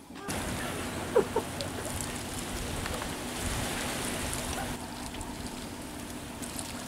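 Steady outdoor hiss with a faint low hum, broken by two short, sharp sounds a little over a second in.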